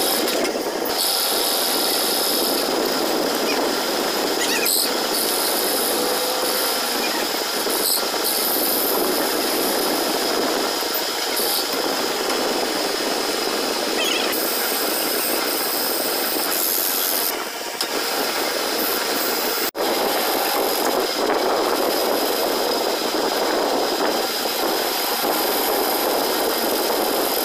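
Metal lathe running with its chuck spinning as a cutting tool turns a round metal bar: a steady machining noise with a high whine, broken for an instant about two-thirds of the way through.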